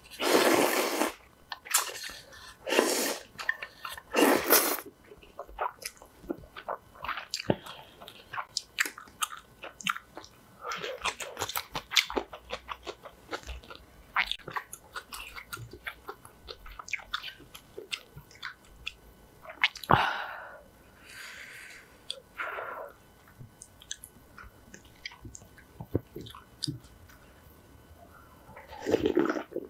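A person slurping hot ramen broth from a bowl, three loud sips in the first five seconds, another about twenty seconds in and one near the end, with chewing and small clicks of a spoon and ladle on the bowl and pan in between.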